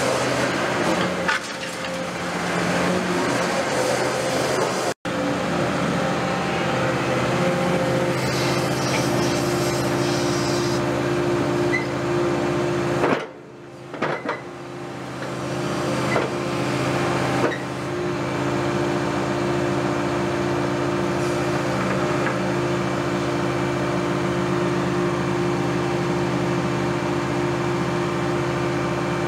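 Caterpillar 330F hydraulic excavator running steadily, its diesel engine and hydraulics humming as it works a crusher attachment, with a few sharp knocks of the jaws on concrete. The sound drops out briefly twice, once about five seconds in and again around a dozen seconds later.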